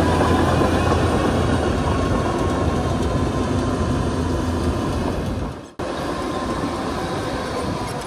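Crawler bulldozer running steadily, its diesel engine with the clatter of steel tracks. The sound drops out for a moment just before six seconds in, then carries on a little quieter.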